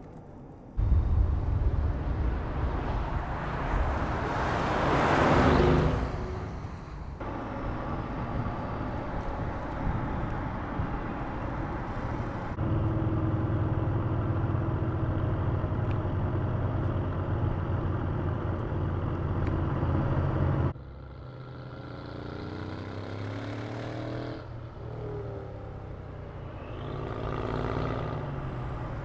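Mercedes-AMG GLE 63 S's twin-turbo V8 being driven, in several cuts that start and stop abruptly. There is a loud rush that swells and falls away around five seconds in, a steady engine drone in the middle, and quieter engine notes rising and falling near the end.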